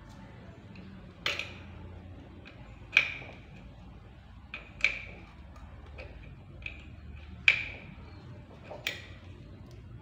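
Sharp, ringing metal clinks of a steel spanner on the pulley nut of a washing machine spin-dryer motor's shaft as the nut is tightened and counter-held: about eight clinks at irregular intervals.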